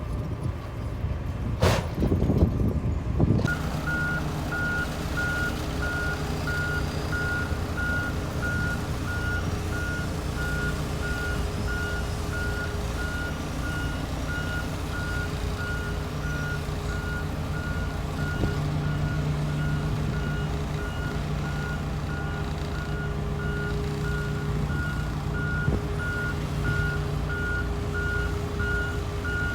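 Bulldozer's diesel engine running with its reversing alarm beeping steadily as it backs up, starting a few seconds in; a few loud metal clanks come just before the beeping begins.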